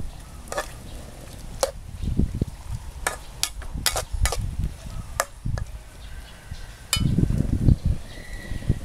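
A metal spatula scraping and clinking against a steel wok while stir-frying pork and green tomatoes in a little sizzling sauce. It gives a series of sharp clinks, and low rumbling bumps near the end.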